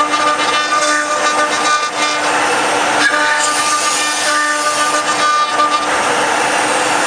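Stepmores 1325HL ATC CNC router spindle running with a steady whine while it engraves a door, with a rasping cutting noise that swells and fades as the tool moves. About six seconds in the whine drops away, leaving a steady rushing noise.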